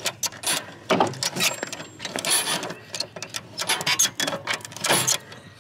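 Ratchet strap buckle being cranked: its pawl clicks over the teeth in irregular clicks, with a few louder snaps. The strap is tightening to pull the mower deck's idler pulley arm over against its spring.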